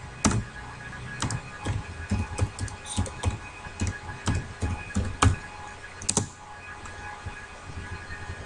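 Typing on a computer keyboard: irregular key clicks, thinning out after about six seconds.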